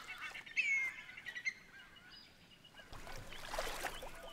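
Birds calling, a few short falling whistled notes and chirps, then from about three seconds in the splashing rush of creek water being scooped up by hand.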